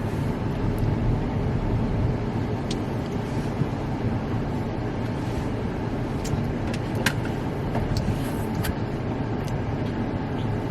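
Steady low rumble of a car heard from inside the cabin, with a few small clicks and taps, the clearest about seven seconds in.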